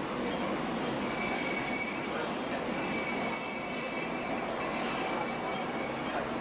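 Inside a diesel railcar: the train is rolling and slowing to a stop beside another train, with steady running rumble and a faint high wheel or brake squeal over most of it.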